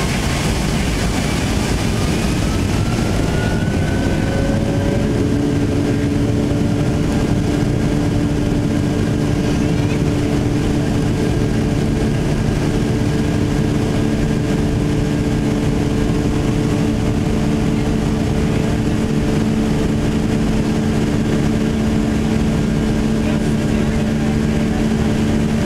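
Boeing 757-200 jet engine noise heard inside the cabin beside the wing while taxiing: a steady rumble with an engine whine that rises in pitch a few seconds in, then settles into steady humming tones.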